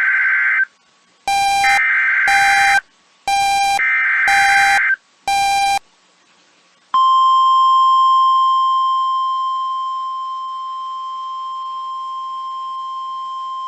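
NOAA Weather Radio emergency alert signal. It opens with short bursts of shrill, warbling SAME digital data tones with brief gaps between them. About seven seconds in, the steady 1050 Hz warning alarm tone starts; it eases down slightly in level and then holds.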